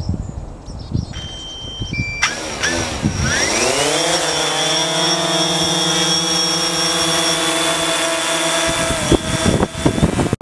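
DJI Phantom quadcopter's four propeller motors spinning up with a rising whine about two seconds in, then a steady buzz as it lifts off and hovers.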